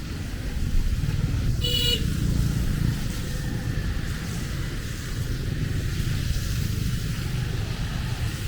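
Road traffic on a wet road in the rain: a steady low rumble of passing engines under a hiss, with one short vehicle horn toot about two seconds in.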